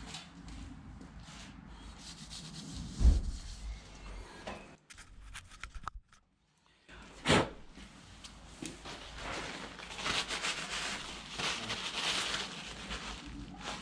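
Two sharp knocks as clutch parts are handled, then a paper shop towel rubbing over the friction facing of a clutch disc during the last few seconds.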